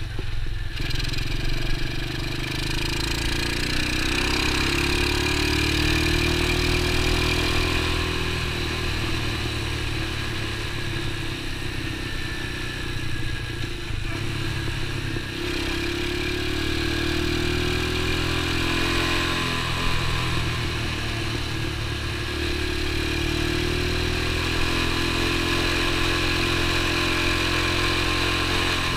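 X19 super pocket bike's small engine running under way, heard from the rider's seat. Its pitch climbs over several seconds about three times as it accelerates and drops back in between, over a steady hiss of wind and road noise.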